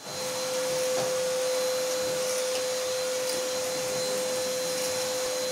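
Vacuum cleaner running steadily, a constant whine over the rush of air through its long hose.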